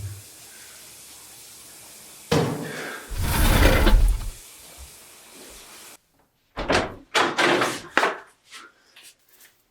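A sudden loud thump about two seconds in, followed by a deep rumbling that lasts about two seconds, then after a pause several shorter bangs.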